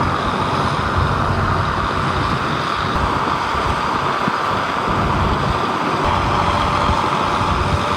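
Vehicle on the move: steady engine and road noise with a low rumble.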